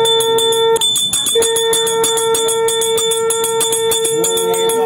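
Brass puja hand bell rung rapidly and continuously, with a steady held lower tone under it that breaks off briefly about a second in.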